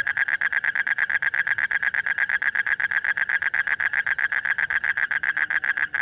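A toad giving its advertisement call, a loud, rapid, unbroken pulsed trill with its vocal sac inflated.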